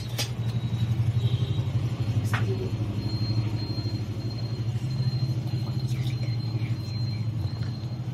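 Gas stove burner running under an iron kadhai of heating oil: a steady low rumble with a fast flutter.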